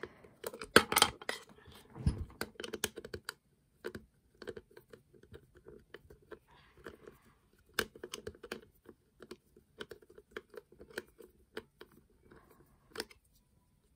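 Irregular plastic clicks, scratches and knocks from handling a small battery-powered toy train model, busiest in the first three seconds with a dull knock about two seconds in.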